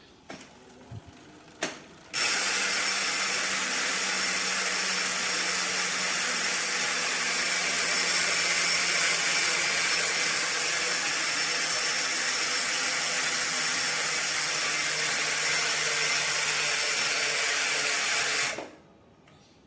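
Nautilus Rakac ratchet freehub on a bicycle's rear wheel buzzing as the wheel is spun hard and freewheels: a dense, even, noisy ratcheting that runs steadily for about sixteen seconds after a few small clicks, then cuts off suddenly as the wheel is stopped.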